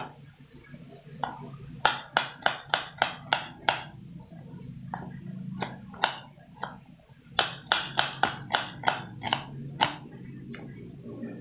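Kitchen knife slicing garlic cloves and a shallot on a cutting board: two quick runs of sharp taps, about four or five a second, with a few single taps between.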